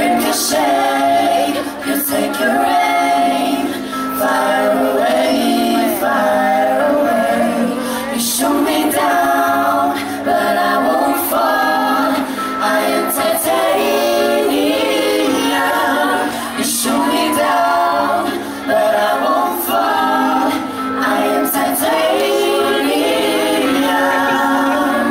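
A group of female singers singing together in harmony through microphones and a PA, over a steady held low note.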